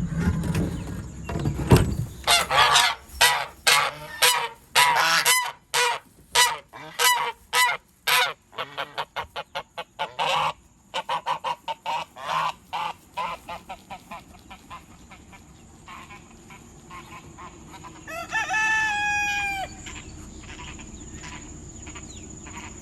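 Domestic geese honking in a rapid run of short calls that tails off, followed near the end by one longer drawn-out call.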